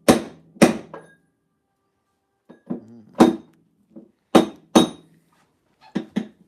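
Repeated hammer blows on metal: sharp strikes about half a second apart, several with a brief metallic ring. There is a pause of about a second and a half after the first few, then the strikes resume.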